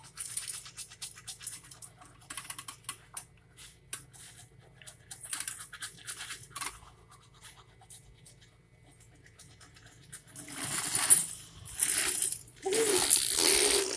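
Soft small clicks and scratching from a toddler handling a plastic baby walker and sucking on her fingers, then about ten seconds in, louder breathy noise bursts and the toddler's high-pitched vocalizing.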